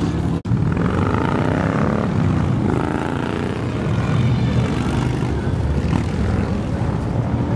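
A motorcycle engine idling. After a brief cut in the sound about half a second in, several motorcycles ride past close by, their engines running with pitch sliding up and down as they go by.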